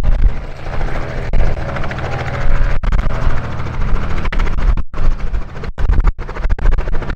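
Robinson R44 Raven II helicopter hovering low and turning on the spot, its two-blade main rotor and fuel-injected six-cylinder engine running loud and steady, with a few split-second dropouts in the sound.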